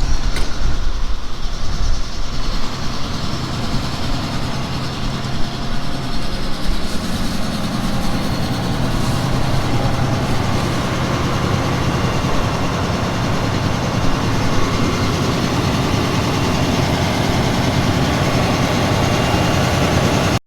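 A combine harvester's diesel engine and machinery running steadily, a little louder after the first few seconds.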